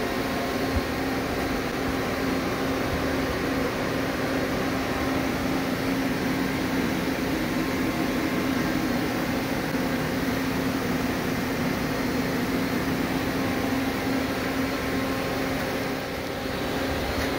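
Steady droning hum of a powered-up Amera Seiki TC-2L CNC lathe idling: a constant low tone with an even hiss over it.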